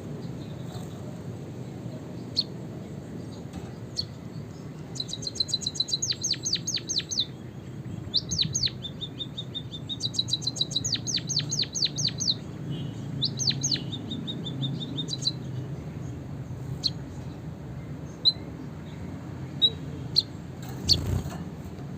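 Small finches singing: fast, high trills of rapidly repeated sweeping notes through the middle, with scattered single chirps before and after, over a steady low background noise.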